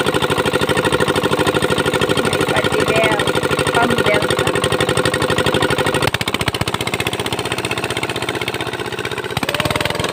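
Single-cylinder engine of a two-wheeled hand tractor (kuliglig) running with a fast, even chugging. About six seconds in the beat becomes less even and slightly quieter as the tractor moves off through the flooded paddy mud.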